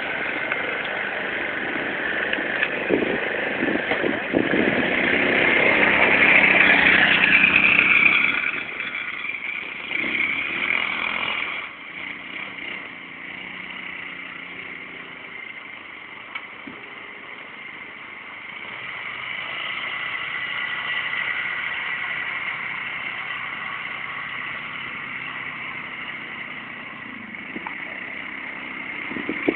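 Suzuki Quadrunner ATV engine under throttle, revving up and getting louder over the first eight seconds, then dropping away sharply. A short rev follows around ten seconds, then a quieter stretch, and the engine swells again a little before twenty seconds and runs on steadily, rising and fading as the machine spins 360s.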